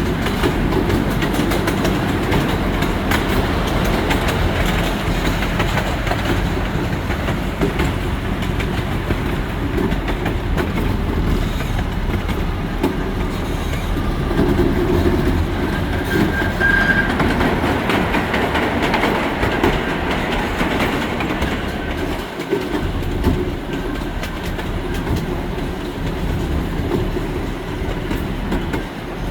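Miniature amusement-park train rolling along its track, heard from a front seat: a steady rumble with wheels clicking over the rail joints. A brief high-pitched squeal comes a little past the middle.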